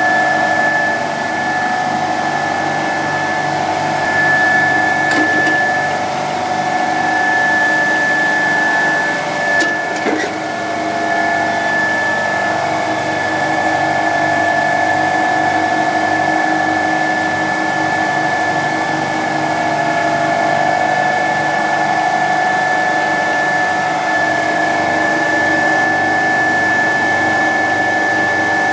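Bitzer refrigeration compressor running steadily, a constant machine drone with a high whine over it, with a brief click about five seconds in and a short knock about ten seconds in.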